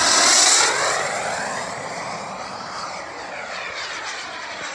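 Kingtech K-260 turbine of a large RC Havoc jet making a fast close pass: the turbine's hissing whine is loudest in the first second, sweeps in pitch as the jet goes by, then fades as it climbs away.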